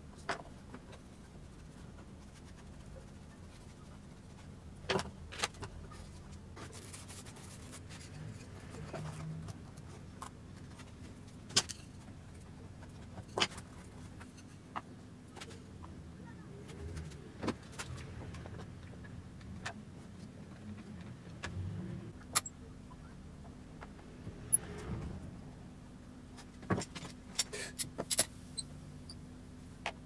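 Scattered sharp clicks and knocks of wooden parts and bar clamps being handled on a workbench during a glue-up, with a quick run of clicks near the end, over a low steady hum.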